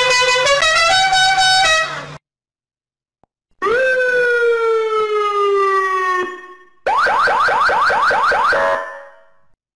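Three siren and alarm sound effects played one after another with short silences between them. First comes a horn-like tone stepping through several pitches, then a single long tone sliding slowly down, then a fast rising whoop repeated about five times a second.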